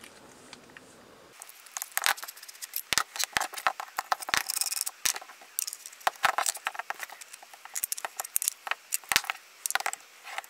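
Metal and plastic parts of a pneumatic pin nailer and its CO2 regulator being handled and fitted together by hand: a quick run of sharp clicks, taps and rattles. It starts about a second in and thins out near the end.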